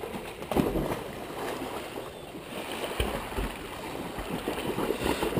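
Pool water splashing as a dog jumps in about half a second in, followed by several dogs paddling and splashing in choppy, uneven bursts.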